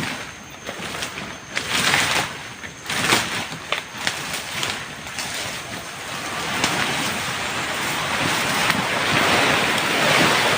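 Overgrown grass being cleared by hand: a run of swishing, rustling strokes through the grass, then a steadier, louder rustle in the second half.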